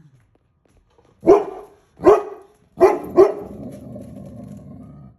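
Dog barking four times, the last two in quick succession, agitated at a moose browsing on trees in the yard.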